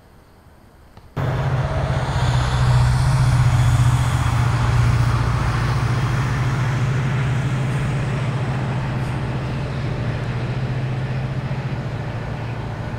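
A heavy engine running steadily close by: a loud low rumble with a hiss above it, cutting in abruptly about a second in and easing off slowly.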